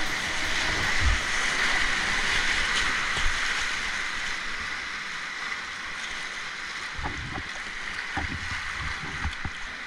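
Whitewater rapid rushing around a kayak: a steady hiss of churning river water, a little louder in the first few seconds. A few dull low thumps sound about a second in and again near the end.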